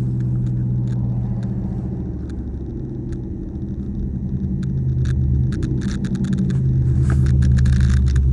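Cammed 5.7 Hemi V8 of a Dodge Charger running while driving, heard from inside the car: a steady low rumble that dips, then grows louder from about halfway as the car picks up. A run of sharp clicks sounds over it from about five to eight seconds in. The engine has an exhaust leak that the owner calls insane.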